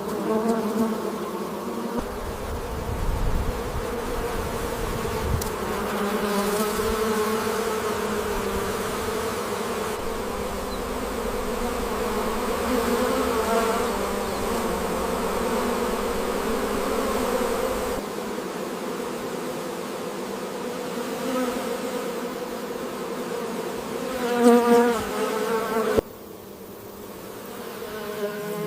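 Continuous buzzing, like flying insects, running through a few abrupt cuts with a louder flurry of buzzing near the end.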